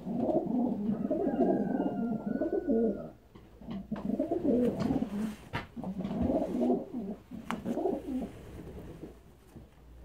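Racing pigeons cooing in a small loft, four bouts of low, rolling coos with short pauses between.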